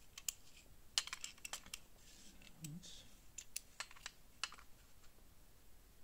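Irregular light clicks and taps of a metal vernier caliper against a hard plastic socket base as its jaws are slid and set into the mounting holes for a measurement, in two loose clusters about a second in and near the four-second mark.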